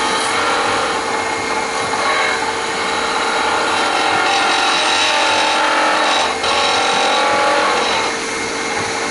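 Skew chisel's point cutting into the corner of spindle wood spinning on a lathe: a steady hissing scrape of the cut over the lathe's steady hum, with a brief break about six seconds in.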